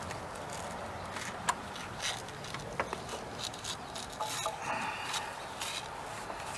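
Scattered light clicks, rubs and scrapes as a belt tool and a serpentine belt are handled around the engine's tensioner and pulleys.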